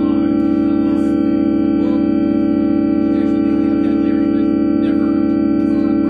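A steady drone of many held notes sounding together, organ-like and unchanging in pitch and loudness, with a few faint clicks and rustles over it.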